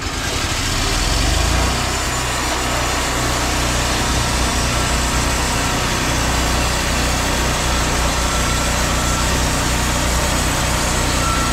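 Wood-Mizer LT50 portable sawmill running, its engine coming up in level over the first second or so and then running steadily with a low hum under a loud hiss.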